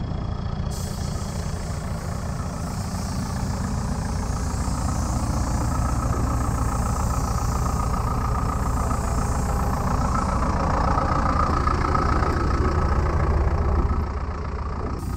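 Mercedes bus diesel engine idling steadily, running its engine-driven air compressor to feed a paint spray gun. The hiss of the spray gun rides over the engine's low pulsing rumble and grows somewhat louder about two-thirds of the way through.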